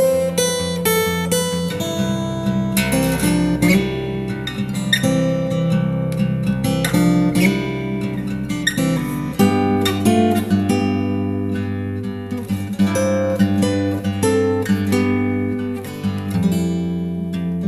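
Background music: an acoustic guitar strummed and picked, moving through chord changes.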